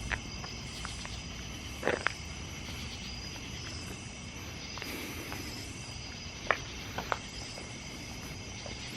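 Crickets trilling steadily, with a few brief clicks about two seconds in and again near seven seconds.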